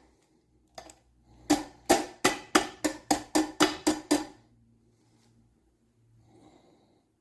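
A rhythmic run of ringing, pitched percussive strikes, about three a second, with a lone strike just before; the run stops about four seconds in, leaving only a faint brief sound near the end.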